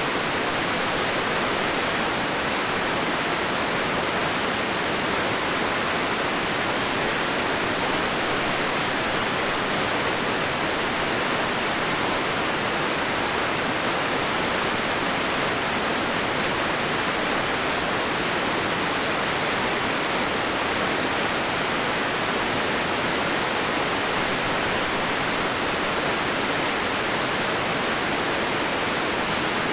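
Crystal River rushing steadily over rocks: an even hiss of fast-moving water that does not change or break.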